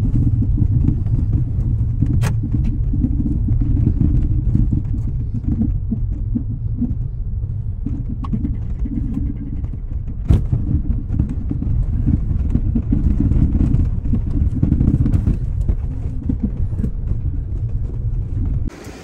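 Low rumble of a Kia Picanto's tyres and suspension on an unpaved gravel road, heard from inside the cabin, with a couple of sharp ticks about two seconds in and again about ten seconds in. It cuts off suddenly near the end.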